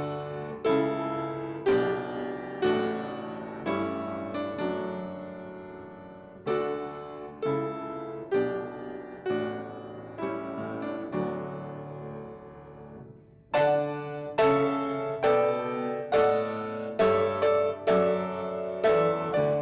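Solo piano playing slow chords, each struck and left to ring, about one a second. The playing fades away about thirteen seconds in, then starts again louder a moment later.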